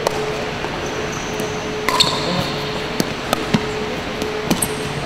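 Pickleball rally: sharp hollow pocks of paddles striking the plastic ball, with its bounces on the hardwood court, about six in all, the first a serve right at the start and the loudest about two seconds in. A steady hum runs underneath.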